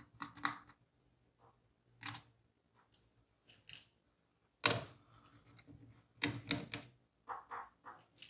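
Scattered clicks, taps and light knocks of a screwdriver, screws and the plastic cooling fan being handled as the fan is unscrewed and lifted out of an opened Dell Latitude 5520 laptop. The loudest knock comes a little under five seconds in, with a quick run of clicks shortly after.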